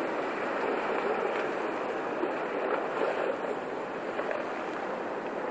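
Pancake ice floes drifting downriver and grinding against one another, a steady rushing noise with faint crackles throughout.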